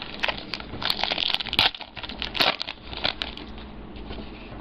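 Foil wrapper of a baseball card pack crinkling as it is opened and handled, with several sharp clicks, busiest in the first three seconds and fading after.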